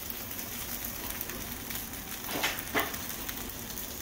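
Meat and vegetable kebabs sizzling steadily on an electric indoor grill, with two short clicks a little past halfway.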